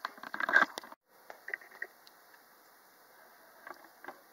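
Muffled, irregular noise that cuts off abruptly about a second in, followed by faint room hiss with a few light clicks and taps near the end.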